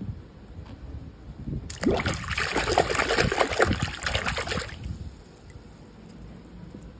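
A hand swishing and scrubbing in a basin of foamy water: a dense, crackling splash that starts about two seconds in and lasts about three seconds, then fades to quiet dripping and trickling.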